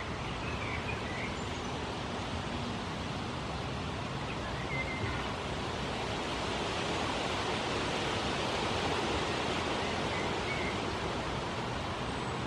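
Steady outdoor background noise, an even hiss that swells slightly in the middle, with a few faint, brief high chirps.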